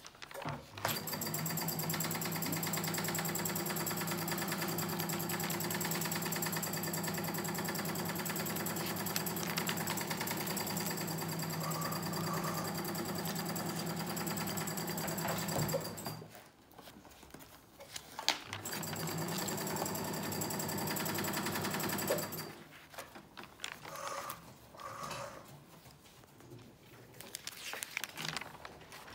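Electric sewing machine running steadily at a fast, even stitch, stopping about sixteen seconds in and running again for about four seconds, then quiet rustling of notebook pages being turned.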